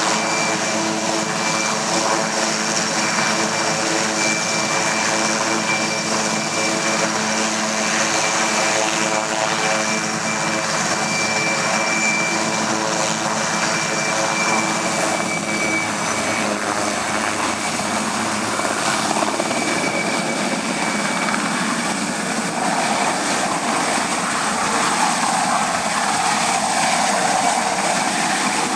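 Eurocopter AS-330 Puma helicopter running: a steady turbine whine over the main-rotor noise. About halfway through, the whine tones fade into a broader, fuller rotor noise as the helicopter is seen airborne overhead.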